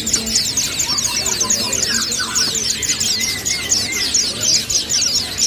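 Caged songbirds chirping: a rapid, unbroken run of high, downward-sweeping notes, about six a second, with scattered softer chirps lower down.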